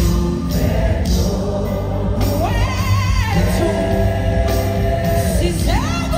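Live gospel music: a lead vocalist with a choir and band, holding long notes and sliding up into a new held note twice.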